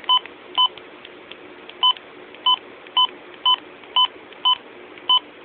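Midland WR-120EZ weather radio's button beeps: a series of about nine short, identical electronic beeps, roughly two a second, one per key press while stepping through its setup menu.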